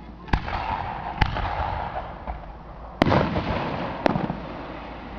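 Aerial fireworks exploding: four sharp bangs at uneven spacing, the loudest about three seconds in, each followed by a short echoing tail.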